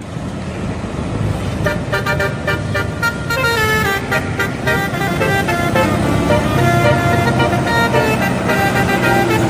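Bus telolet horn, a multi-tone horn playing a quick tune of stepping notes that starts about a second and a half in, over the low running of the bus engine.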